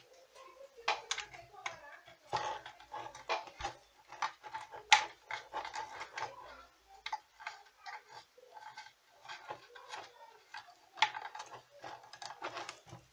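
Irregular clicks, taps and light scrapes of hands handling and fitting an amplifier's front panel onto its chassis, with one louder click about five seconds in.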